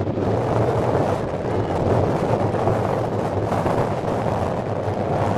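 Steady wind noise on the microphone, an even rush with no distinct events.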